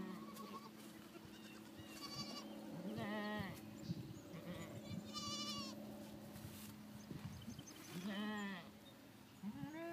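Goats bleating about five times: short, quavering calls, one of them higher-pitched than the rest.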